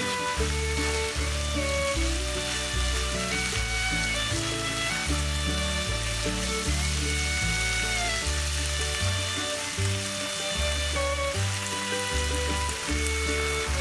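Minced pork and red onion sizzling in a nonstick frying pan over medium heat as they are stirred with a silicone spatula. Background music plays throughout.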